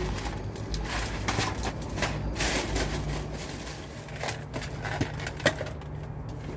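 Handling and unwrapping of toy packaging: irregular rustling and crinkling, with a sharp click about five and a half seconds in.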